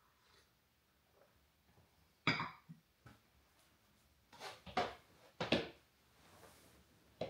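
A ceramic mug set down on a wooden coffee table with a sharp knock, then a book picked up and opened, with a few short rustles and a light click near the end.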